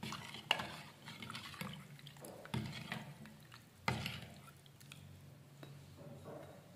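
Steel spoon stirring milk powder into warm sugar water in a steel bowl: the liquid swishes, and the spoon clinks sharply against the bowl a few times, most clearly about half a second, two and a half and four seconds in.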